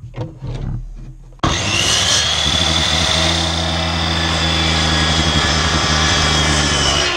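A few light knocks as a pine board is handled, then a mitre saw's motor switches on abruptly about a second and a half in and runs at full speed with a steady high whine as the blade is lowered toward the board.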